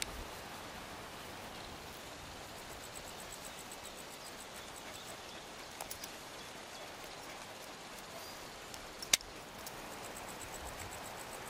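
Faint outdoor background noise: a steady hiss, with a faint high ticking for a couple of seconds early on and one sharp click about nine seconds in.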